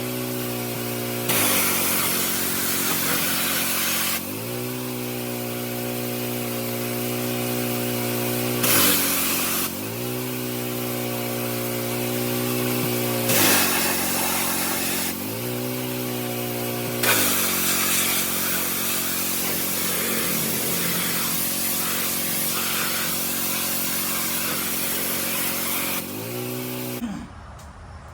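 Gas pressure washer with an 11-horsepower Honda engine running, with four bursts of high-pressure water spray as the trigger is squeezed, the last one long. The engine note dips under the pump's load each time the spray starts and climbs back when it stops. Near the end the sound cuts off.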